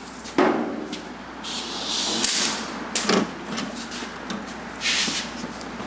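A few knocks and clanks of metal tools on a steel workbench, with two short hisses of compressed air from a shop air hose, one near the middle and one near the end.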